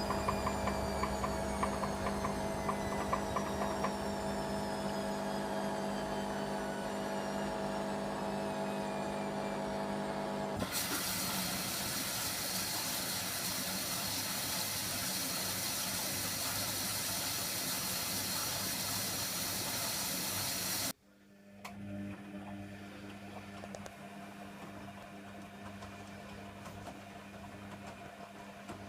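Hoover Nextra HNWL7146 washer dryer running: a motor hum with a high whine that slowly falls in pitch, then a loud, steady hiss for about ten seconds that cuts off suddenly, leaving a quieter hum.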